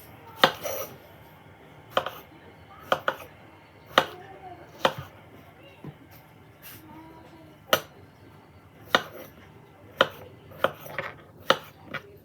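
Knife chopping through strawberries onto a cutting board: a dozen or so sharp, separate strokes at uneven intervals.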